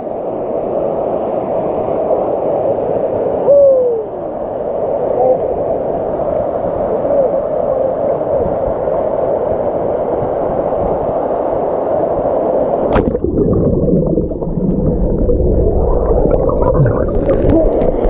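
Loud, steady rushing and gurgling water of a mountain stream. About thirteen seconds in the sound changes abruptly, turning deeper and duller.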